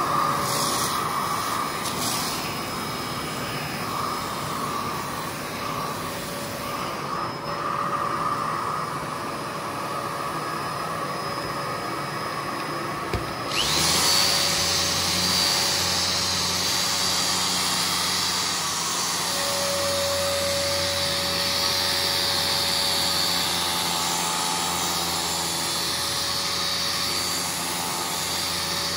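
Carpet-cleaning power equipment running steadily; about halfway through, a click and a second, louder motor switches on, adding a low hum and a high steady whine.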